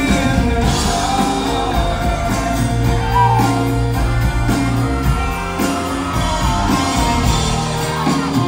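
A live country band playing, with fiddle, acoustic guitars and electric bass over a steady beat.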